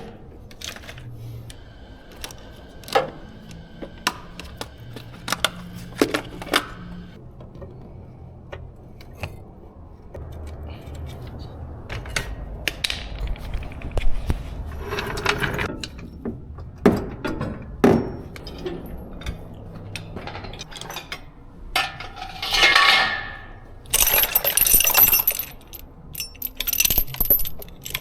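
Metal tools and parts clinking and knocking, scattered sharp clicks with a few louder jangling bursts.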